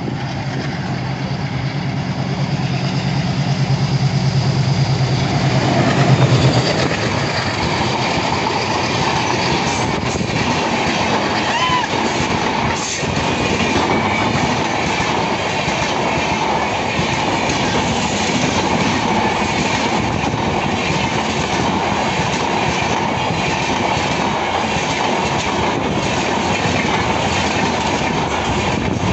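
ALCO diesel locomotive approaching and passing at speed, its engine hum building to a peak and dropping away about six seconds in. The express's passenger coaches then rush past with a steady clickety-clack of wheels over the rail joints.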